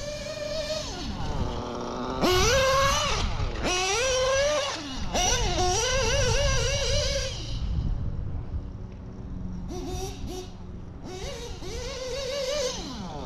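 O.S. B7TT nitro engine with a Hipex 2108 tuned pipe, in an RC buggy, run at high revs in several full-throttle bursts. The pitch climbs as it accelerates and falls away as it lets off or passes by, with a quieter lull partway through before another run.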